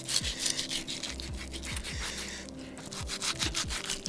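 Chef's knife sawing through a cooked tomahawk steak beside the bone, in repeated rasping strokes. Background music with deep falling bass notes plays underneath.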